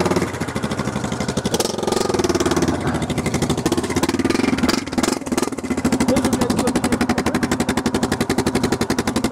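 Off-road vehicle engine running close by, its revs rising and falling, then holding steady from about six seconds in.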